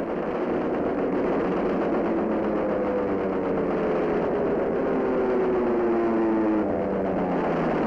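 Aircraft piston engine droning loud over a dense rumbling noise. Its pitch slides slowly downward for several seconds, then the sound changes near the end.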